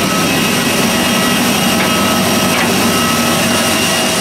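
Steady, loud jet turbine noise on an airport apron: a constant rushing roar with several steady high whining tones over it, without breaks.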